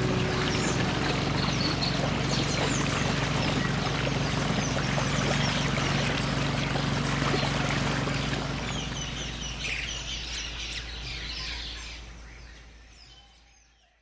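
Many birds chirping and calling over a steady outdoor hiss, with a low steady hum underneath; it all fades out over the last couple of seconds.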